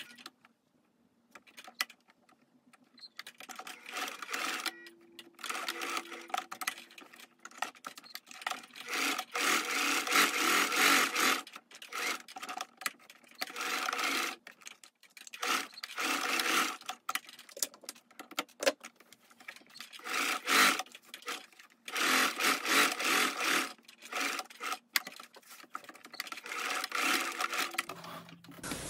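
Singer domestic sewing machine stitching linen, running in short bursts of a second or two with brief stops between them. It starts a few seconds in.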